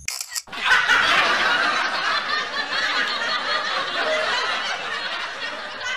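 Crowd laughter: many voices laughing together in a dense, steady mass, starting about half a second in.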